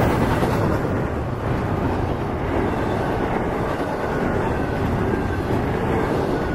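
Double-stack intermodal container cars of a freight train rolling past, a steady rumble of steel wheels on the rails.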